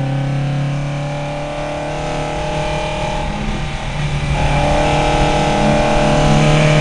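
VW Lupo race car's engine heard from inside the cabin, pulling hard in gear. Its note climbs slowly and gets louder about four seconds in.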